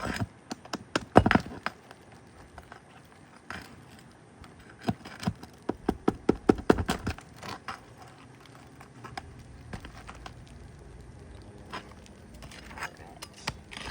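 Metal roof snake working under asphalt shingles to pull roofing nails: bursts of sharp metallic clicks and taps. One cluster comes at the start and a longer run of quick taps about five to seven seconds in.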